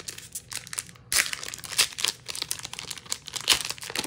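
Foil wrapper of a Magic: The Gathering booster pack being torn open by hand, crinkling and crackling, growing sharply louder about a second in.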